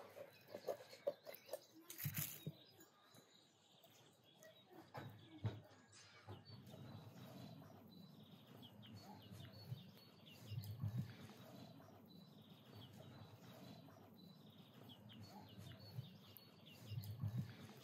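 Quiet handling of a raw whole chicken with hands and a wooden spoon in a wooden tray: a few light taps and clicks in the first several seconds. Small birds chirp faintly in short repeated series in the background.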